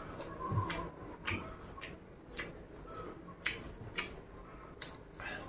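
Close-up chewing of raw leafy vegetables, with sharp mouth clicks coming irregularly, about seven in all.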